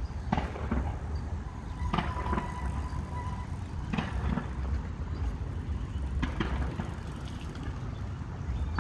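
Outdoor background noise: a steady low rumble, with a short sharp click or knock about every two seconds and a brief faint steady tone about two seconds in.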